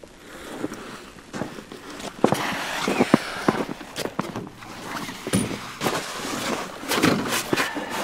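Boots crunching on packed snow, with fabric rustling: an irregular run of crunches and knocks that gets busier about two seconds in.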